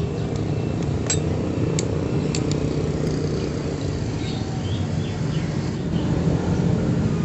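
A few light metal clinks from tools and parts on a partly dismantled Honda Supra motorcycle engine, in the first two and a half seconds. Under them runs a steady low rumble of an engine running elsewhere in the workshop.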